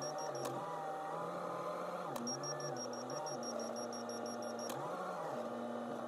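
A backhoe loader running, heard from the operator's seat. Twice a rapid, high electronic beeping sounds: briefly at the start, then for about two and a half seconds midway.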